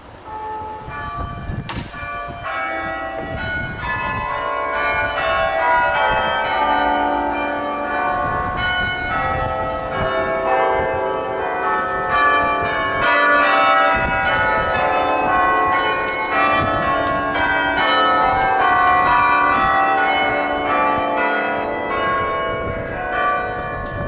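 Church tower carillon playing a tune: many tuned bells struck by clappers in quick succession, each note ringing on over the next. The bells come in quietly and grow louder over the first few seconds.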